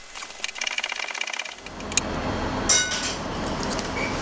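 A quick run of knife knocks on a cutting board for about a second and a half, then a steady hiss with a brief high ring a little past the middle.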